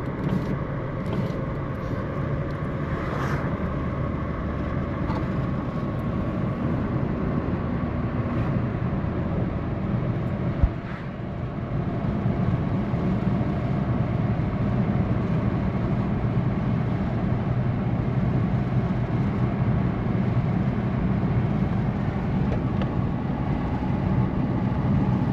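A car driving along a road: steady engine and road noise, with one sharp knock just under halfway through.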